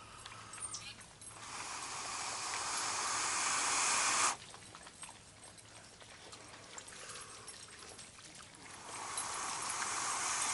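Long breaths blown into a smouldering tinder bundle to coax the ember into flame. There are two blows: the first swells in loudness for about three seconds and cuts off sharply, and the second begins near the end.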